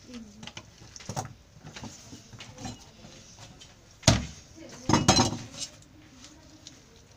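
A cleaver and knife knocking and clinking on a wooden table while a large fish is cut up. There is a light knock about a second in, one loud chop about four seconds in and a short clatter of metal tools a second later.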